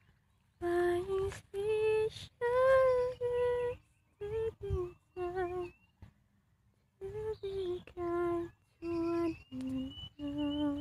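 A woman humming a slow tune, a string of held notes in short phrases with brief pauses between them.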